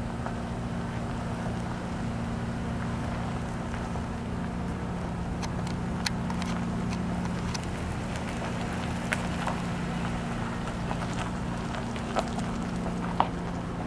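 An engine idling steadily under a light noise haze, with scattered crunching steps on gravel from about five seconds in.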